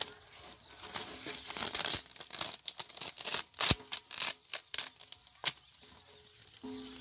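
Layers of a burnt fibreglass computer circuit board being peeled apart by hand, giving irregular crackling and tearing with a couple of sharp snaps, as the burnt board delaminates. The crackling dies away about five and a half seconds in.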